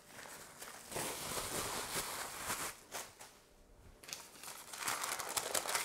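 Plastic bubble wrap and baking paper crinkling and crackling as they are handled while a sheet of ready-rolled puff pastry is unwrapped and laid flat. The rustling drops away for about a second a little past halfway, then resumes as sharper crackles near the end.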